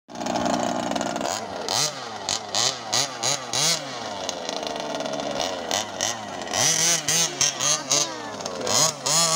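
29cc two-stroke petrol engine of a 1/5-scale Baja RC buggy revving in quick throttle blips, its pitch rising and falling over and over, with a few slower swells in the middle.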